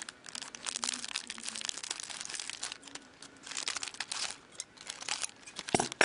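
Wrapper of a hockey trading-card pack crinkling as it is torn open by hand, in irregular crackles, with one sharper, louder crackle near the end.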